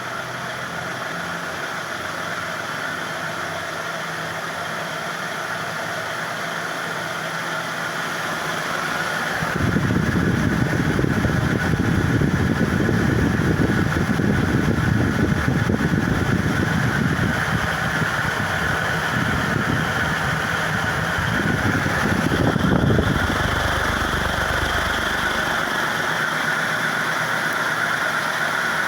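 Novelli Tókio commercial ceiling fan running at high speed, with a steady hum and whine from its motor, blades and worn, half-seized 6203 ball bearings. About ten seconds in, a heavy low rushing of air from the fan's downdraft comes in over the hum and fades out a few seconds before the end.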